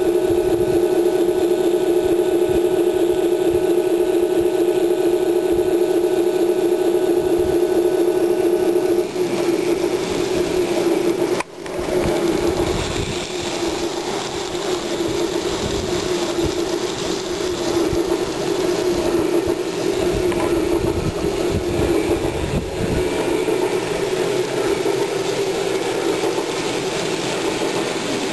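N scale model trains running on the layout. A steady pitched hum with overtones holds for about the first nine seconds. After a brief drop about eleven seconds in, a rougher, rattling running noise follows.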